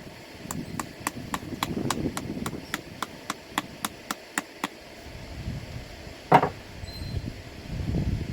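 A rapid, even run of sharp metallic clicks, about four a second for some four seconds, then a single loud knock.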